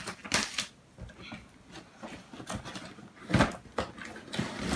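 Plastic toy parts and a cardboard box being handled: a few scattered knocks and rustles, the loudest about three and a half seconds in.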